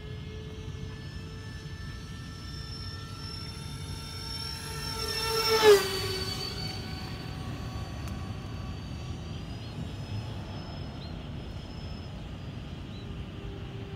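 Twin 70 mm electric ducted fans of an FMS A-10 radio-controlled jet whining overhead. About halfway through, the model makes a close pass: the whine swells, peaks and drops in pitch as it goes by, then settles into a steady, fainter whine as it flies off.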